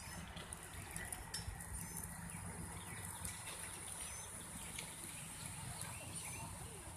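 Faint outdoor ambience with a steady low rumble and a few faint, short high chirps.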